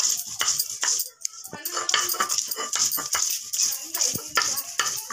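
Hand grinding of spices on a sil-batta, a stone muller worked back and forth over a flat grinding stone into a wet paste of garlic, turmeric and chillies, making quick rhythmic scraping strokes. There is a short pause about a second in.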